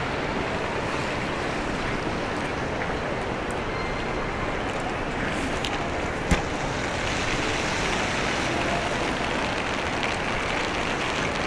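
Steady hiss of rain and wet city street noise, growing a little brighter about seven seconds in, with a single sharp click about six seconds in.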